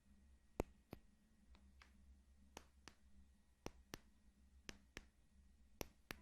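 Sparse, irregular soft clicks, about a dozen, over near silence and a faint low hum.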